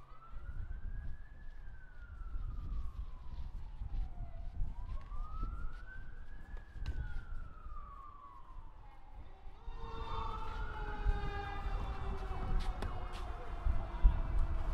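Emergency vehicle siren wailing, its pitch slowly rising and falling about every five seconds. About two-thirds of the way in, a louder, steadily falling siren tone joins it.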